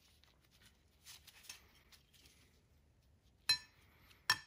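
Small steel parts of a Multifix lathe tool post being handled and pulled apart: faint handling sounds, then two short ringing metal clinks near the end.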